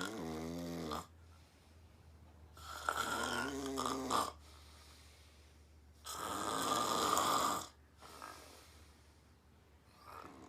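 A woman snoring: three loud snores about three seconds apart, the first two with a buzzing, pitched rattle and the third rougher and breathier, then quieter breaths near the end.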